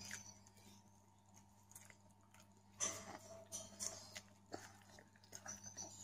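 Faint close-up chewing and biting while eating artichoke, with scattered small mouth clicks and a louder cluster of crunchy bites about three to four seconds in.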